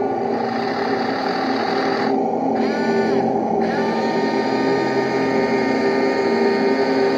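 1:16-scale Torro Panzer IV RC tank running: a steady mechanical whirr from its electric motors and its sound unit's simulated engine, with a short shift in pitch about three seconds in as the turret traverses.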